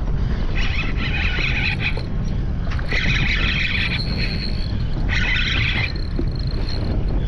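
Steady low rumble of wind and boat noise on open water, with a high buzzing burst about every two seconds, three times.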